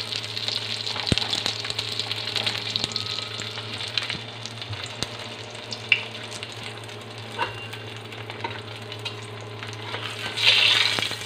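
A vegetable pancake sizzling and crackling as it shallow-fries in oil in a nonstick pan. Just after the ten-second mark a metal spatula scrapes under it to lift it, the loudest moment.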